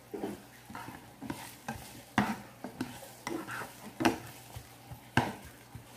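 Sliced onions being stirred and turned in hot oil in a nonstick frying pan with a plastic spatula: irregular scrapes and taps of the spatula on the pan over a light sizzle. A few sharper knocks stand out, about two, four and five seconds in.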